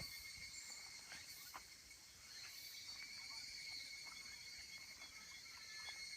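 Faint, steady high-pitched chorus of insects trilling, with a few soft ticks.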